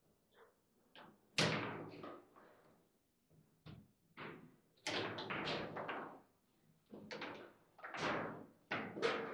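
Foosball (table football) game in play: the ball is struck by the rod figures and rebounds off the table walls. The result is a string of sharp, irregular knocks and clacks, each with a short ringing tail, the loudest about a second and a half in.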